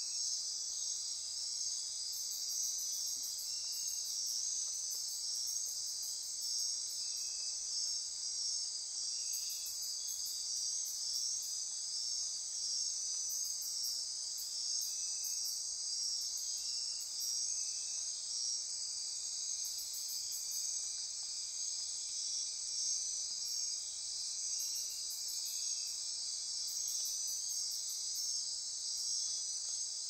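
Dense night-time chorus of tropical rainforest insects: a steady, shrill trilling, with trains of very high, rapid pulses that come and go every few seconds.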